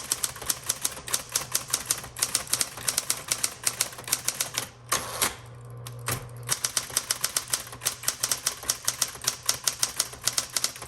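Smith Corona Coronet Automatic 12 electric typewriter typing at speed: a fast run of keystrokes, several a second, over the steady hum of its running motor. A short break about halfway through is marked by two single louder strokes.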